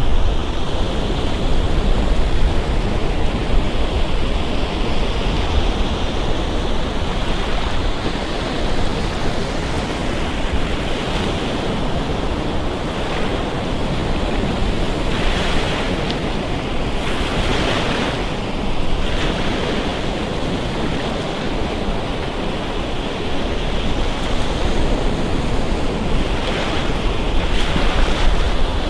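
Surf breaking and washing up a sandy beach in a steady, continuous rush, with wind buffeting the microphone as a low rumble.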